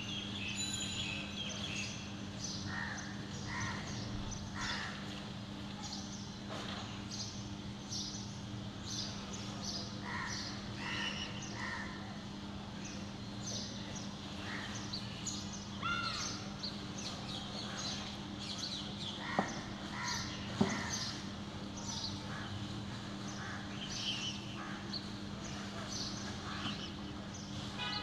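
House crows cawing in short, scattered calls amid many brief high chirps, over a steady low hum. Two sharp clicks, a little over a second apart, come about twenty seconds in.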